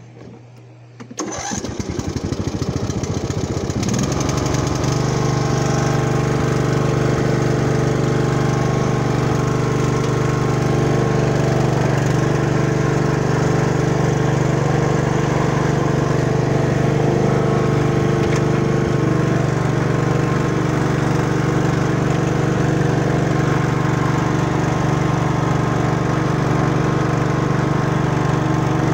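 Craftsman T1200 riding lawn mower's engine being cranked about a second in and catching within a few seconds, then running steadily at a constant speed.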